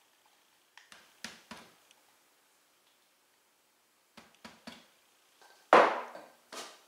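A few light knocks and clicks of the measuring cup against the food processor's plastic bowl as the sour cream mixture is poured and scraped in, then near the end a louder plastic clunk and a second smaller one as the processor's lid is handled.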